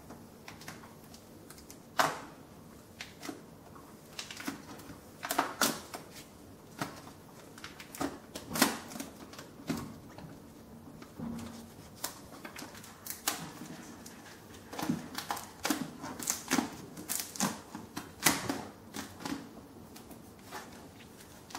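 Irregular clicks, taps and light knocks from cardboard and plastic packaging being handled, with a few louder sharp knocks scattered through.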